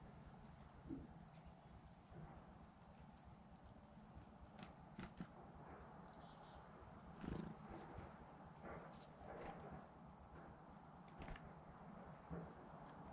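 Small songbirds giving short, high chirps and twitters at irregular intervals, faint against a low background hum. A few sharp clicks and taps come through, the loudest about ten seconds in.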